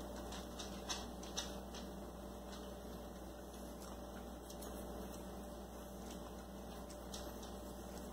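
Quiet, steady low electrical hum, with a few faint clicks about a second in.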